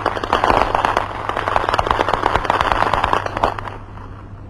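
Rapid, sustained automatic gunfire, dense shots many per second, that stops about three and a half seconds in.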